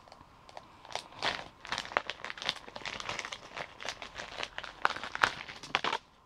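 Packaging of a small cat toy crinkling and rustling in irregular crackles as it is opened by hand, starting about a second in.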